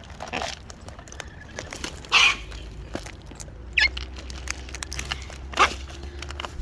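Cockatoos giving short, harsh squawks, about five spaced through a few seconds, the loudest about two seconds in.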